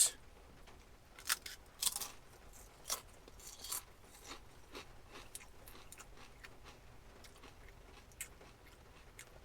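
A person chewing a crunchy wavy potato chip. There are several sharp crunches in the first few seconds, then softer, sparser chewing that fades.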